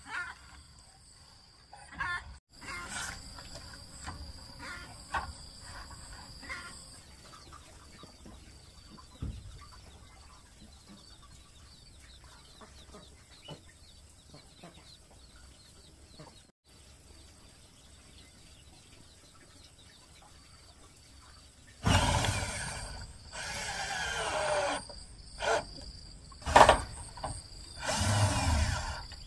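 A cordless drill drives screws into corrugated metal roofing sheet in four bursts near the end, the first and longest about two and a half seconds. Before that, quieter clucking from a hen with chicks.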